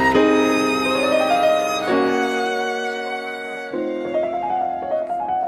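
Background music: sustained chords that change about every two seconds, with a melody line sliding upward about a second in.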